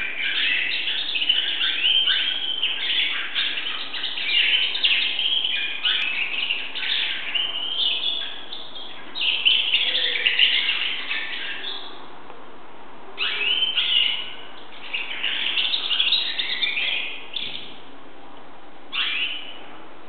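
Pet canary singing: a long unbroken run of rapid chirping song for the first half, then shorter phrases with pauses between them.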